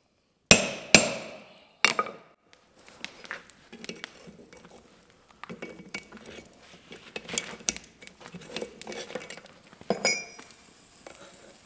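Three hammer blows on a hand-held punch, driving a hole through a hot steel bar on an anvil, in the first two seconds. Then light clinks and knocks as the steel tongs and the bar are shifted about on the anvil.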